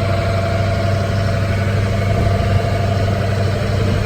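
Tour tram's engine running steadily: a low hum with a faint steady whine above it.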